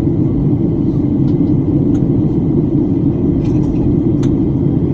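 Steady cabin noise in a Boeing 737-800 in flight, heard from a window seat: the low, even rumble of its CFM56 engines and the airflow over the fuselage.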